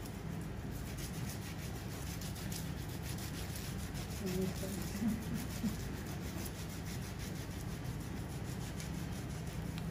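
Salon hand file rasping against nail and skin in quick, repeated back-and-forth strokes.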